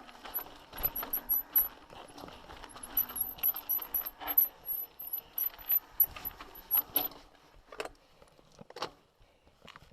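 Mountain bike rattling and clattering over a rough, rocky trail, loose clicks and knocks coming fast and unevenly; the clatter thins out about seven seconds in to a few separate knocks.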